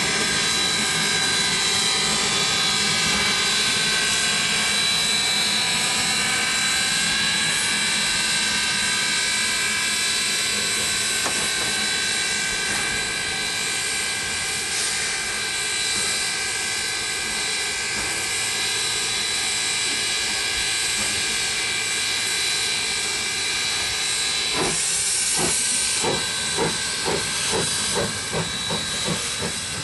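QR PB15 class steam locomotive hissing steam steadily, with faint steady tones in the hiss. Near the end comes a run of rhythmic chuffs, about two a second.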